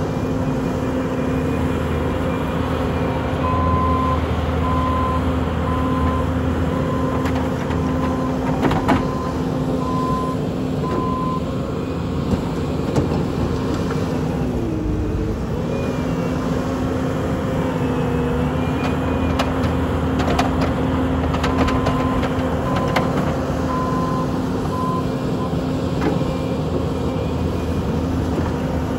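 Bobcat T770 compact track loader's diesel engine running steadily, its pitch dipping briefly about halfway through as it is pulled down under load. A warning alarm beeps about once a second in two stretches, with a few clanks.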